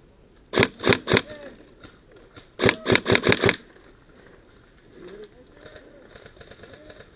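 Airsoft gun firing close to the microphone: three single shots in quick succession, then after a short pause a rapid string of about six shots.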